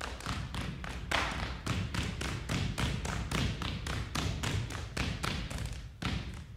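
A dancer's footwork: shoes striking a wooden stage floor in a quick, uneven rhythm of about four to five strikes a second, stopping suddenly near the end.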